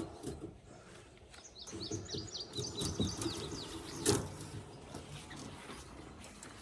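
A songbird chirping a quick run of short high notes, over rustling and handling noise, with one sharp knock about four seconds in.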